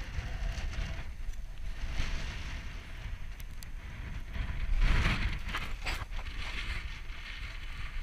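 Wind buffeting the camera microphone as a low rumble, swelling into a stronger gust about five seconds in.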